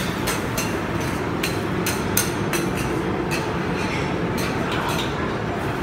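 Steady din of a busy open restaurant kitchen, with many sharp metallic clinks and clanks of cooking utensils and dishes scattered through it.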